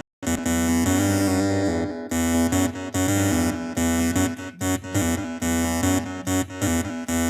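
Electronic dance music led by synthesizers, with a steady pulsing beat and a sustained bass line; the sound cuts out completely for a moment right at the start, then resumes.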